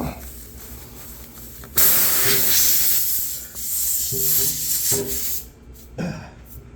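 Air hissing out of a punctured tire through the reamed hole as the plug insertion tool is worked into it. It starts suddenly about two seconds in and dies away after about three and a half seconds.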